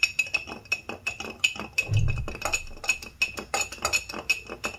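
Long metal bar spoon stirring a drink over a large ice ball in a glass beer mug, clinking rapidly against the glass and ice, several clinks a second, each with a short glassy ring. The stirring stops at the very end.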